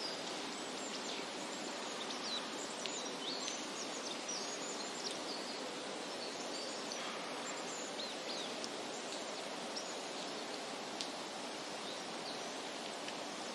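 Outdoor nature ambience: a steady rushing background with many short, high bird chirps scattered over it, thinning out about halfway through.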